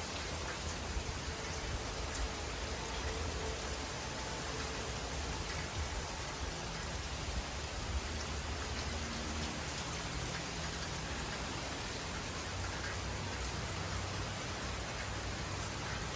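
Heavy rain falling steadily, an even hiss with scattered drop ticks, over a low, shifting rumble.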